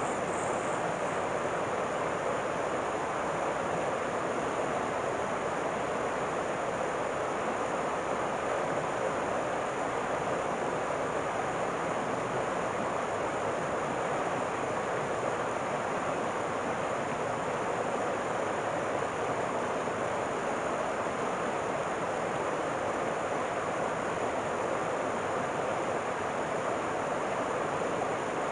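River water rushing in a steady, unbroken noise.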